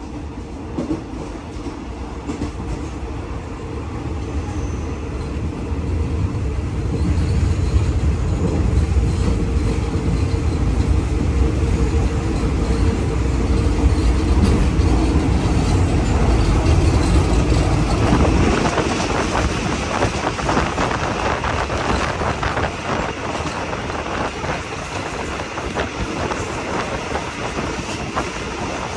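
Train No. 51 running along the track with a steady rumble. About two-thirds of the way through, the deep rumble drops away and a busier rattling clatter of wheels and carriages takes over.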